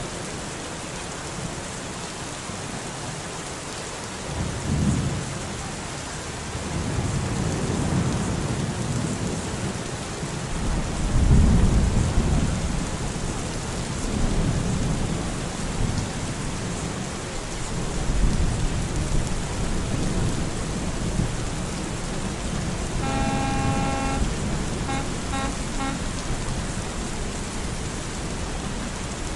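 Steady rain falling, with rolls of thunder rumbling several times, the loudest about twelve seconds in. About three-quarters of the way through, a short pitched tone sounds, then a few quick short repeats of it.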